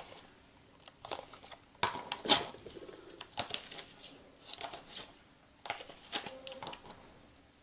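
Homemade slime being stirred: irregular sticky clicks and squelches.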